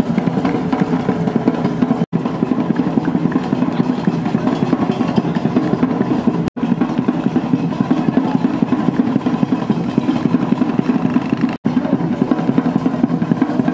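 Steady motor vehicle engine running, broken three times by brief, sudden dropouts in the sound.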